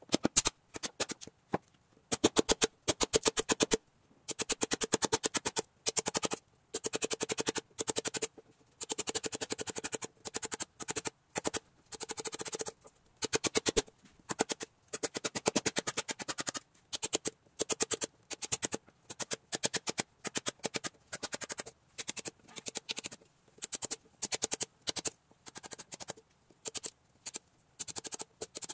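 Hammer tapping a wood chisel into teak in rapid runs of light strikes, several a second, each run lasting one to two seconds with short pauses between.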